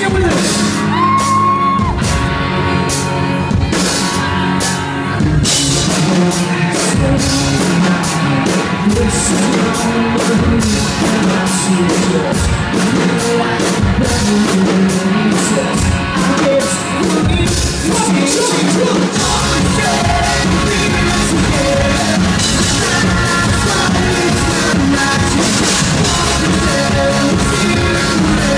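Live rock band playing: electric guitars, keyboard and drum kit with a male lead singer. The full drum beat comes in about five seconds in.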